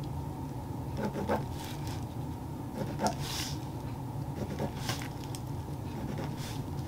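Pencil drawing along a ruler on thin pattern tissue paper: a few faint, short scratchy strokes with light paper rustles and clicks, over a steady low hum.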